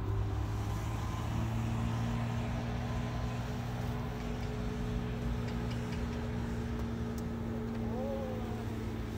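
A steady engine hum at a moderate level, holding one low pitch.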